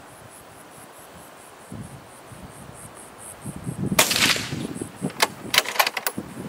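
A suppressed .223 rifle fires one shot about four seconds in, a sharp crack with a short tail. Several quick sharp clicks follow about a second later.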